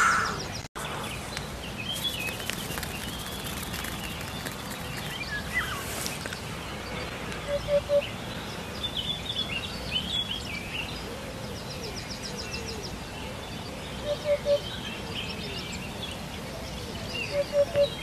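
Eurasian hoopoe calling its soft, low triple hoot, 'oop-oop-oop', three times about every six seconds, with small birds chirping faintly in the background.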